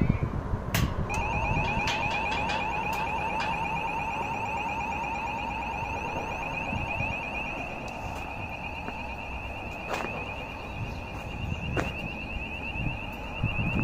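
Level crossing warning alarm sounding a high, rapidly warbling tone with a lower tone beneath it, starting about a second in and holding steady, with a few sharp clicks over it.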